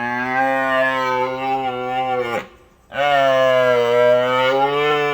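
Cow mooing: two long, low, steady moos, each falling off in pitch at the end, the second starting about three seconds in.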